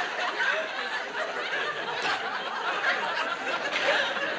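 Studio audience laughing.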